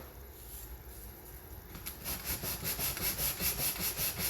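Sandpaper rubbed by hand along the edges of thin wooden bulkhead pieces. The even back-and-forth strokes, about five a second, grow louder about halfway in.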